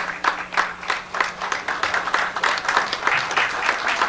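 Audience applauding and clapping in a fairly even rhythm of a few claps a second, with a faint steady hum from the sound system underneath.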